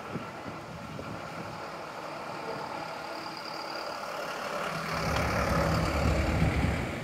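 A microbus driving slowly past close by, its engine getting louder over the last two seconds and loudest just before the end, over a steady hum of traffic.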